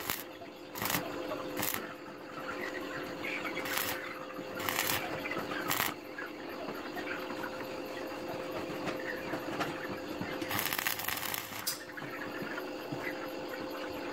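Stick (arc) welding of steel wire: a series of short, sharp bursts of crackling hiss as tack welds are struck, with one longer burst of about a second late on, over a steady hum.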